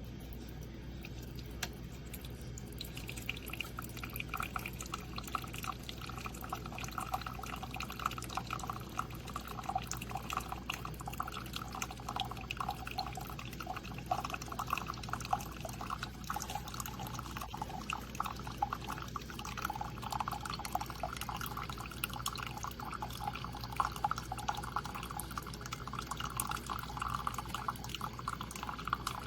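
Liquid pouring in a steady stream into a container, starting about three seconds in.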